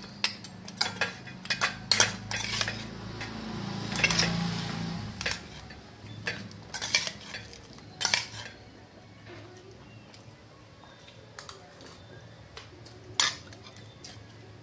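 Steel spoon and ladle clinking and scraping against stainless steel plates and bowls while idli and ghugni are dished out. The clinks come thick and fast in the first half, then thin out, with one sharp clink near the end.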